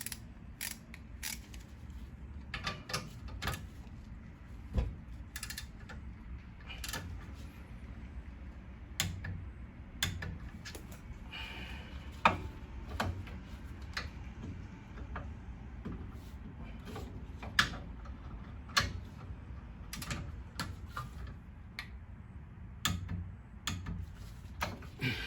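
Irregular metallic clicks and knocks of hand tools and metal parts being handled while a car's rear brake caliper is put back together, a few every couple of seconds.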